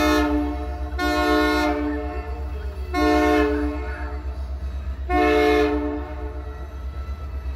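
Diesel locomotive horn sounding a chord in four short blasts: one right at the start, then about one, three and five seconds in. Under it runs the steady low rumble of the passing train.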